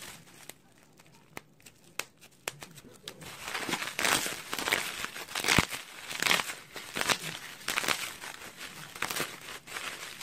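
Plastic bubble wrap being squeezed and crumpled by hand, crinkling. At first there are only a few sharp snaps. The crinkling becomes dense and continuous from about three and a half seconds in, with one loud snap near the middle.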